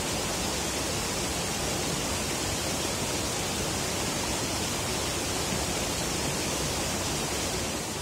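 Steady, even rushing noise with no distinct events, starting to fade near the end.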